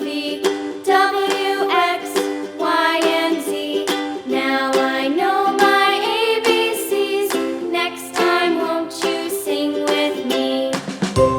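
Background music: a light tune with a melody moving note by note over a plucked-string accompaniment.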